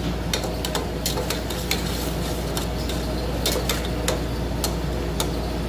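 A slotted steel spatula stirring and scraping a simmering tomato chutney mixture in an aluminium pot, with irregular clinks of metal against the pot over a steady low hum.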